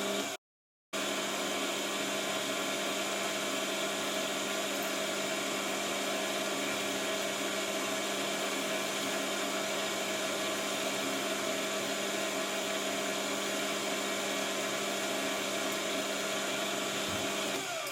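Metal lathe running steadily, a constant motor hum and whine as a groove is cut into a casting. It shuts off and winds down near the end.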